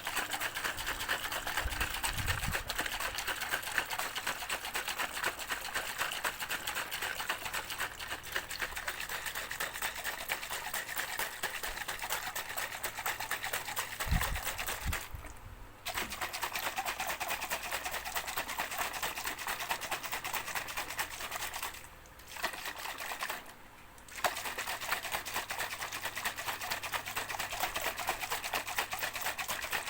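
A shaker shaken fast and steadily, making a dense continuous rattle that stops briefly three times, about halfway through and twice about three quarters of the way in.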